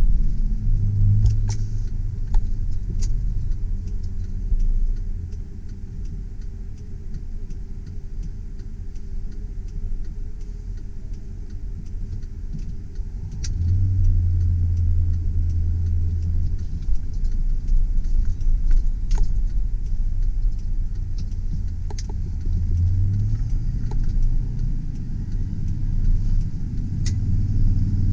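Chevrolet Silverado 2500 pickup truck driving: a steady low engine and road rumble, with the engine drone swelling at times and getting louder about halfway through, and a few light clicks or rattles.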